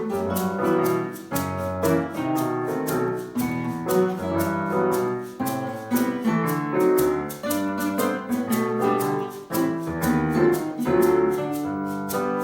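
A small mixed ensemble playing a jazz tune, led by piano with guitar, over a steady ticking percussion beat.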